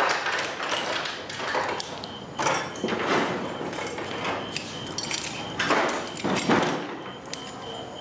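Someone working a wooden door and its lock: repeated rattling, scraping and knocks as it is unlocked and opened.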